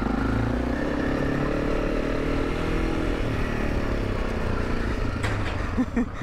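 Honda CRF300 Rally's freshly rebuilt single-cylinder engine running while the bike is ridden, its note dipping slightly in pitch partway through. A few short knocks near the end.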